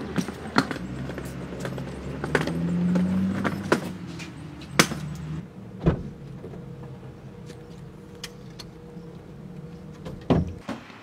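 Car sounds: a low engine rumble with scattered clicks and knocks, briefly swelling about two to three seconds in. It then drops to a quieter steady hum, with a heavy thump near the end.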